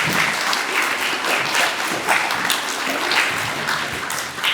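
Audience applauding: an assembly of children and parents clapping steadily for an award winner.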